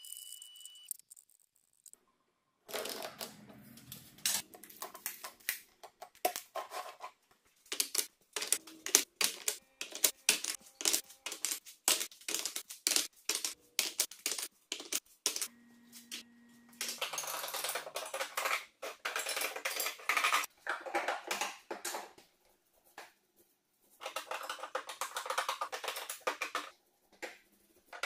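Thin hardwood strips clacking against each other and the wooden bench as they are handled, sorted and stacked by hand: quick, irregular runs of light wooden knocks with brief pauses between.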